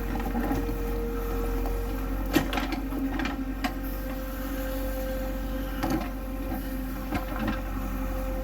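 JCB earth-mover's diesel engine running steadily, its pitch stepping up slightly about four seconds in, with a few sharp knocks, the loudest about two and a half seconds in.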